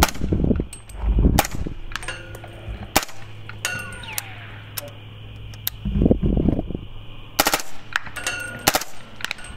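Suppressed 300 Blackout AR-pattern rifle with a Dead Air Sandman Long suppressor fired semi-automatically: a string of shots, some in quick pairs, with a gap of a couple of seconds in the middle. A short metallic ring follows several of the shots.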